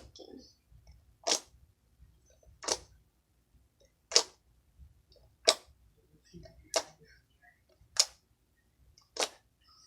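Sticky slime being worked in the hands, giving seven sharp pops at an even pace, about one every second and a quarter.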